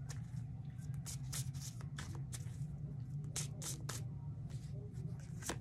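A tarot deck being shuffled by hand, the cards making many quick, irregular snaps and slaps. A steady low hum runs underneath.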